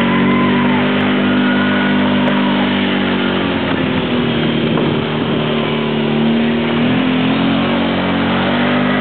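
Vehicle engine running steadily, close by. Its pitch wavers about four seconds in and rises slightly near seven seconds.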